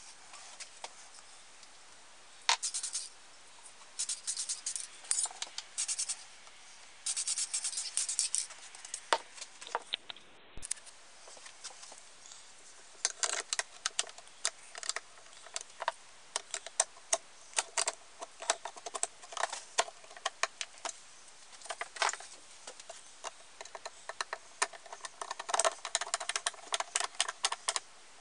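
Small metal camp-stove parts clicking, tapping and scraping as they are handled and fitted together by hand, with a screwdriver turning a screw into the stove's tank. The clicks come in irregular clusters and grow denser about halfway through.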